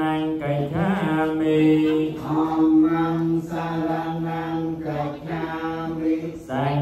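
Buddhist paritta chanting: a group of male voices recite in unison on a nearly level pitch, in phrases of a second or two with short breaks between them.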